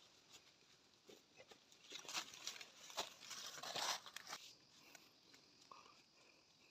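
Footsteps and rustling through dry leaves and undergrowth, with scattered crackles of twigs, loudest about two to four seconds in as the walker passes close, then dying away.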